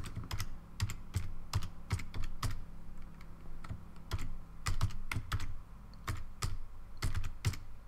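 Typing on a computer keyboard: irregular keystroke clicks, with a brief pause about three-quarters of the way through. A low steady hum lies underneath.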